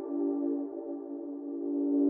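Synthesized train horn chord imitating a Nathan K5LA five-chime horn, played on a synthesizer app. Several steady notes are held together; the chord softens through the middle and swells again at the very end.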